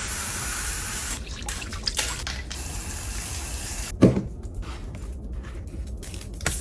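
Running water splashing during a small dog's bath, breaking up briefly a few times. It stops abruptly about four seconds in with one loud thump, followed by scattered light taps and drips.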